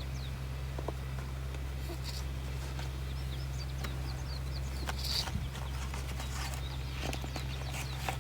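A person snoring while asleep, a rasping breath about every two to three seconds, over a steady low hum, with small birds chirping throughout.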